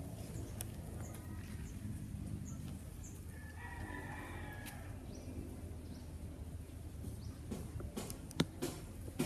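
A rooster crows once, a call of about a second and a half starting about three seconds in, over a steady low rumble. A few sharp clicks come near the end.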